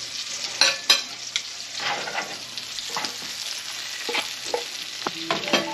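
Shrimp frying in hot butter in a frying pan, sizzling steadily, while a wooden spatula scrapes and knocks against the pan in short irregular strokes.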